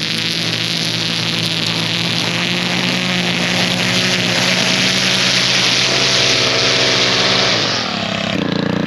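An engine running steadily under a loud hiss. About three-quarters of the way through, its note drops and changes and the hiss falls away, as when the throttle is let off.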